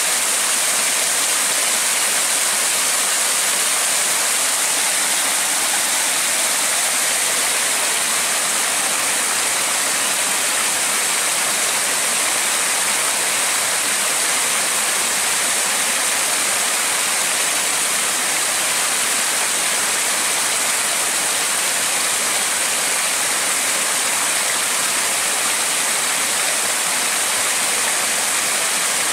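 Steady rushing of flowing river water, an even hiss strongest in the high range that never changes.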